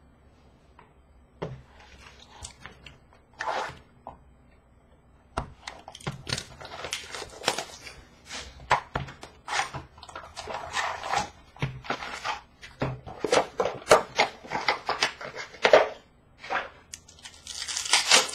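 Hands handling a box of 2015-16 O-Pee-Chee Platinum hockey cards and its foil packs: scattered cardboard clicks and wrapper crinkling, with a longer tearing rip near the end as a foil pack is torn open.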